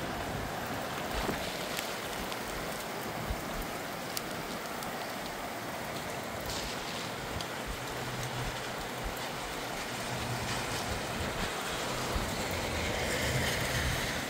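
Steady rain falling in a blustery wind, with scattered sharp taps of drops landing close by.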